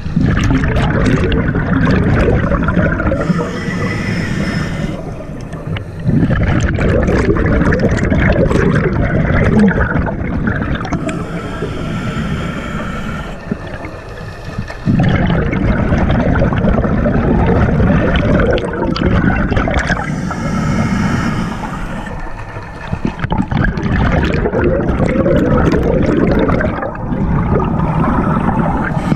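Scuba diver's regulator breathing heard underwater: four long gurgling rushes of exhaled bubbles, one every seven or eight seconds, with quieter hissing breaks for the inhale between them.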